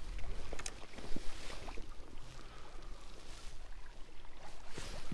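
Fishing rod and spinning reel being handled for a cast, giving scattered clicks and rustles over a low wind rumble on the microphone.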